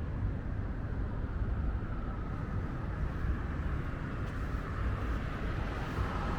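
Wind rumbling on the microphone, with the hiss of sea surf swelling from about three seconds in.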